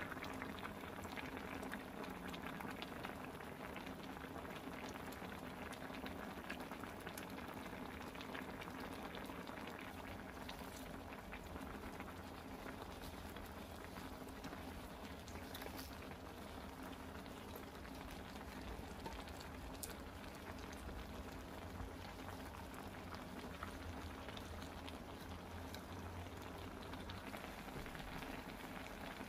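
A pot of braised chicken with aged kimchi boiling uncovered, the spicy broth bubbling steadily with a dense patter of small pops.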